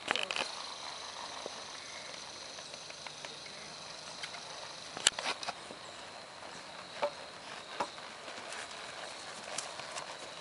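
Hooves of a ridden horse on grass: irregular soft thuds and clicks, the sharpest about five seconds in.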